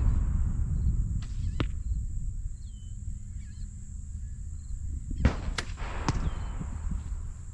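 Two sharp cracks about a third of a second apart, about five seconds in, followed by a rolling echo: a shot on a shooting range. Wind rumbles on the microphone, and small birds chirp faintly.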